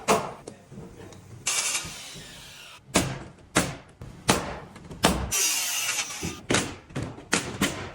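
Carpentry work on a ceiling frame: a series of sharp, irregular knocks, with two brief bursts of hiss between them.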